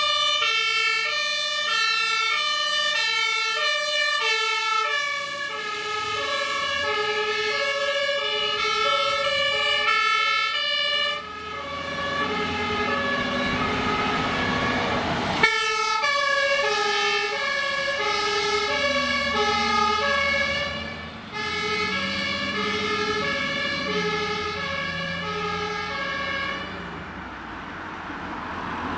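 German fire engines' two-tone sirens (Martinshorn) alternating high and low, with truck engine and road noise underneath. The siren pattern breaks off abruptly about 11 and 15 seconds in, then starts again.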